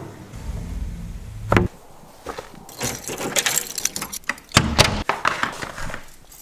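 A low rumble, then a sharp knock, followed by a run of clicks, clatter and knocks with a heavy thud about three-quarters of the way through.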